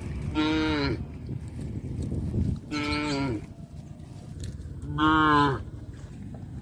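Cows mooing: three calls about two seconds apart, each dropping in pitch at its end, the third the loudest.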